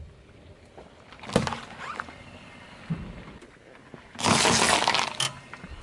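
A car tyre crushing objects on asphalt: a plastic pudding cup bursts under it with a sharp crack about a second and a half in, and near the end a whole cucumber is crushed with a loud burst of crunching and squashing that lasts about a second.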